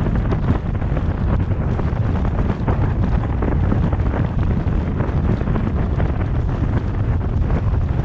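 Wind rushing over the microphone of a camera on a car moving at road speed: a steady, deep, uneven rush with road noise under it.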